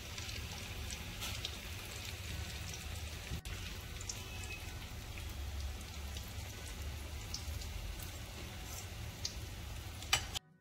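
Cutlets shallow-frying in oil: a steady sizzle with scattered small crackles and pops over a constant low hum. A sharp click sounds just before the sound cuts off near the end.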